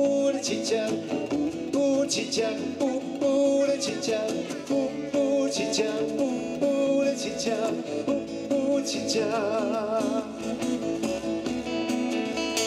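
A man singing to his own strummed acoustic guitar, live through a microphone, with a long wavering held note about three-quarters of the way through.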